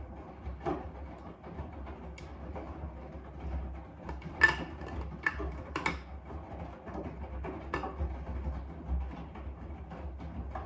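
AEG 7000 Series washing machine in its main wash: a low, steady hum from the drum drive under the tumbling laundry, with irregular knocks and clicks as the wash turns. The sharpest knocks come about four and a half to six seconds in.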